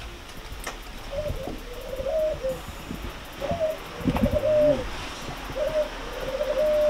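A dove cooing: three repeated phrases, each about a second long, with a few faint clicks between them.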